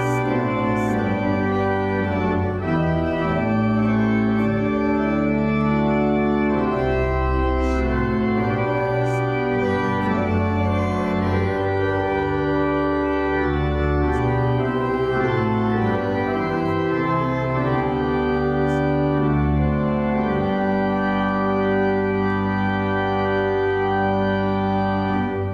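Organ playing slow, held chords over a deep bass line, then stopping at the close.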